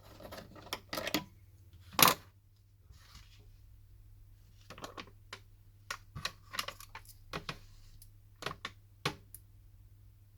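Small hard clicks and taps from handling a phone and tools on a work surface during a screen repair, in scattered runs with one louder knock about two seconds in.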